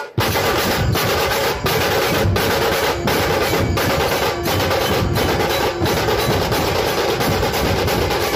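Loud drum-heavy music with a fast, steady beat.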